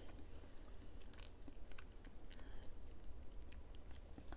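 Close-miked chewing of a soft Kyoho grape jelly: a scattering of short mouth clicks and smacks.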